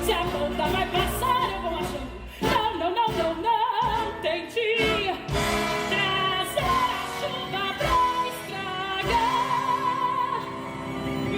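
A woman belting a Broadway show tune over a band accompaniment, holding long notes with vibrato in the second half.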